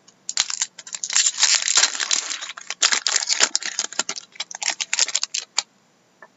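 Foil trading-card pack wrapper crinkling and tearing as it is opened by hand, in a run of dense crackles that stops suddenly near the end.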